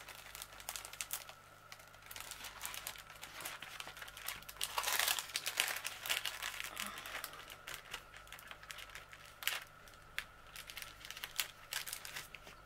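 Clear plastic protective film on a diamond painting canvas crinkling and crackling irregularly as it is lifted off the sticky glue and pulled straight, with a louder stretch of crackling about five seconds in.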